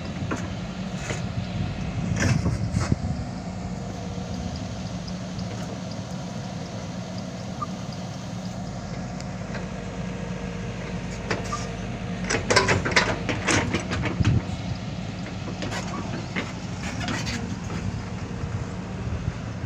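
Hydraulic excavator's diesel engine running steadily under work, with clanking and scraping of the bucket against soil and rock about two seconds in and again from about twelve to fourteen seconds in.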